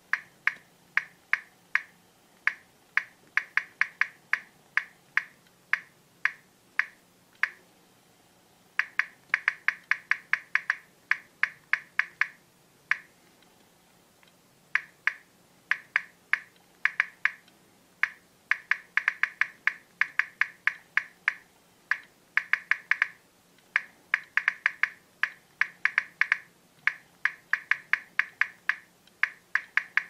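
Key-press clicks of a touchscreen phone's on-screen keyboard: one short, bright tick per tap, coming in quick, irregular runs of several a second as two thumbs type. The typing pauses briefly about eight seconds in and again around thirteen to fifteen seconds.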